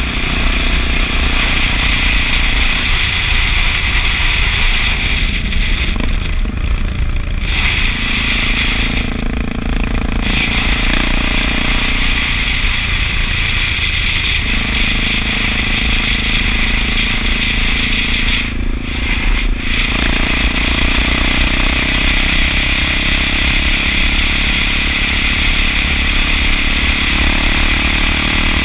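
Honda XR650L's single-cylinder four-stroke engine running while riding at road speed, its pitch stepping up and down several times with throttle and gear changes.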